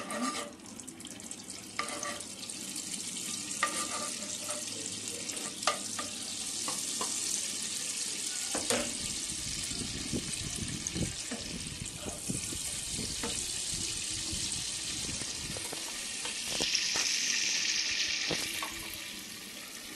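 Butter melting and sizzling in hot vegetable oil in a nonstick pan, with occasional clicks and scrapes of a spoon and a wooden spatula against the pan. The sizzle grows louder for a couple of seconds near the end.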